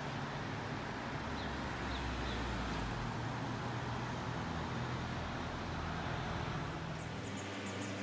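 Steady hum of road traffic from the street below, with a few faint high chirps, more of them near the end.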